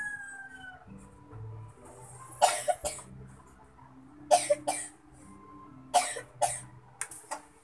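A man coughing, several short coughs mostly in pairs, over a low steady hum. In the first second the falling tail of a rooster's crow fades out.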